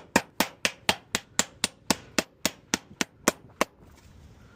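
Hammer tapping a trim nail into aluminum-wrapped garage door trim: about fourteen quick, even strikes at roughly four a second, stopping about three and a half seconds in, with another run of taps starting right at the end.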